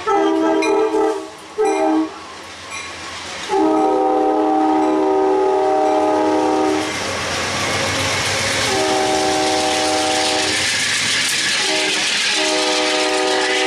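Amtrak push-pull train passing at speed, its horn chord sounding two short blasts and then long, long, short, long, the pattern used at grade crossings. From about halfway through, a loud rushing rumble of wheels and the P42 diesel locomotive's engine builds under the horn.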